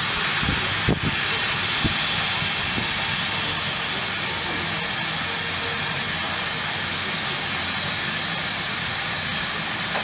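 NER Class H (LNER Y7) 0-4-0 tank locomotive moving off slowly with a steady hiss of steam from its open cylinder drain cocks. A couple of short knocks come about one and two seconds in.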